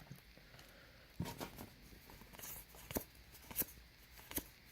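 Basketball trading cards being handled and flipped through one by one: faint card-on-card slides with about five short, sharp flicks and taps.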